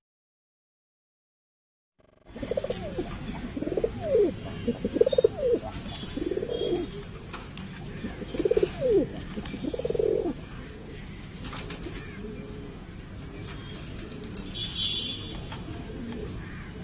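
Domestic high-flying pigeons cooing: starting about two seconds in, a string of repeated coos over about eight seconds, then the cooing stops and only a low steady background noise remains, with a brief high chirp near the end.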